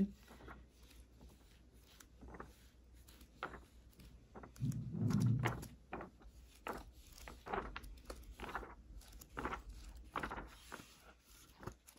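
Paper pages of a thick book being leafed through by hand, a run of short rustles and flicks. About five seconds in comes a louder, dull low sound lasting about a second.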